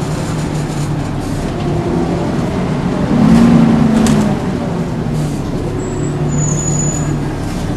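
Volvo B10BLE single-decker bus running, a steady drone that swells louder for about a second, three seconds in. A brief thin high-pitched squeal sounds near the end.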